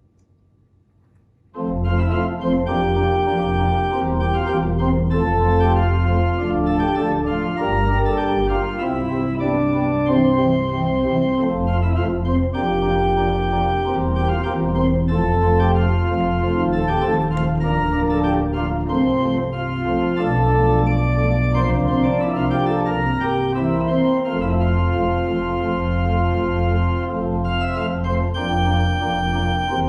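Organ postlude at the end of a church service: sustained chords start abruptly about a second and a half in, with a strong deep bass, the chords changing every second or two.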